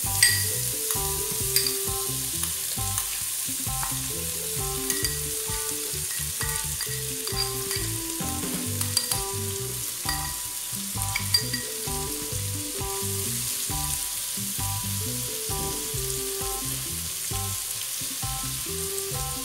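Diced bacon, calabresa sausage, garlic and freshly added chopped onion sizzling in rendered fat in a large stainless steel pot, a steady frying hiss. A few sharp clicks of a spoon knocking against the bowl and pot rim, the loudest just at the start.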